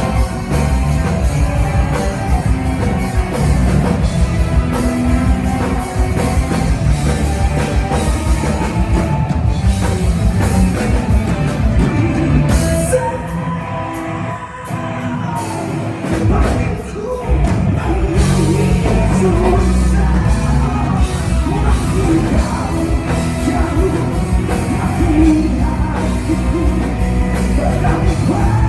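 Live rock band playing with drum kit, bass and lead singing. About halfway through the band drops to a thinner, quieter passage for a couple of seconds, then the drums and bass come back in at full strength.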